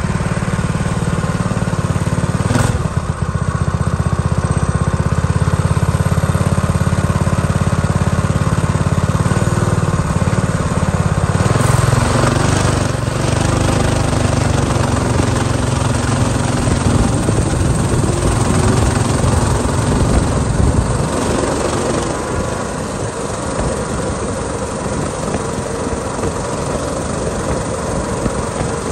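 Coleman minibike's small single-cylinder four-stroke engine running under throttle while riding, with rushing air noise; about two-thirds of the way through the engine eases off and the sound drops a little.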